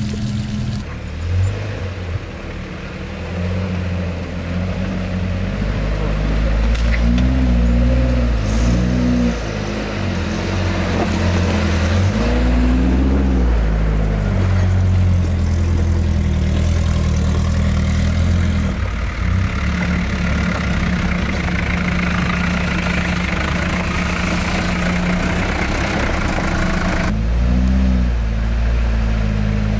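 Off-road truck engine running under load on a trail, revving up and back down a few times. Its sound changes abruptly several times.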